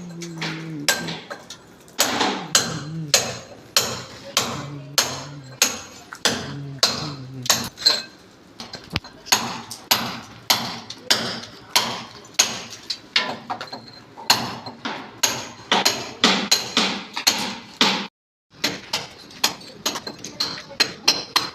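Hammer blows struck over and over, about two a second, each a sharp metallic knock. There is a brief gap near the end.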